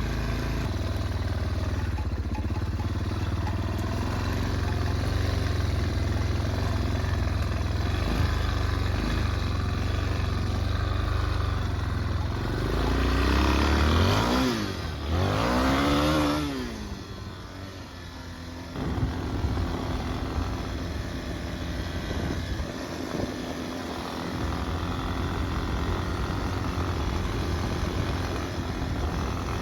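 Yamaha Warrior 350 ATV's single-cylinder four-stroke engine running under way, revving up and falling back once about halfway through, dipping briefly, then running steadily again.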